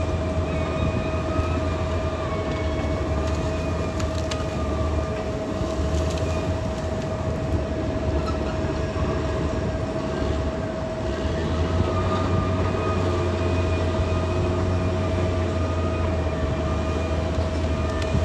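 A Caterpillar D6R XL bulldozer running steadily. Its diesel engine gives a deep rumble, a steady whine sits over it, and a few faint clicks come through.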